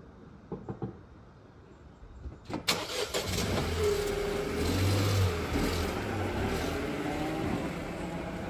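A Nissan Micra's engine cranking and catching about two and a half seconds in, then running and pulling away, its note rising and falling as the car moves off. A few light clicks come just before, about half a second in.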